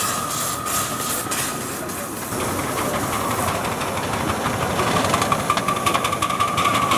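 Miniature 7.25-inch-gauge steam locomotive, a model GWR '1101' Class 0-4-0 pannier tank, running light engine with a steady hiss of steam. Quick, regular exhaust beats come through from about the middle on.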